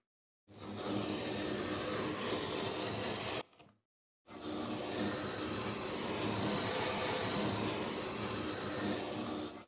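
Close-miked scraping and crumbling of packed sand as hand tools cut grooves along a sand block, heard as two continuous stretches of gritty rasping with a brief silence between them a little over three seconds in.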